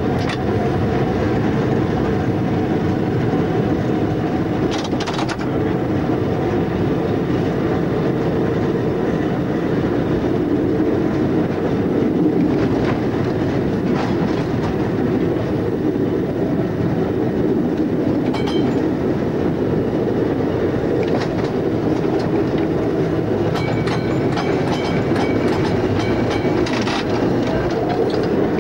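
Interurban tram running along the line, heard from the driver's cab: a steady rumble of wheels on rail with scattered clacks at the rail joints. Thin high squeals come in briefly a little after halfway and again near the end.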